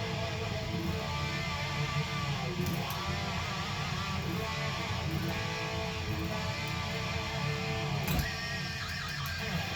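Guitar being played continuously, notes and chords ringing on without a break.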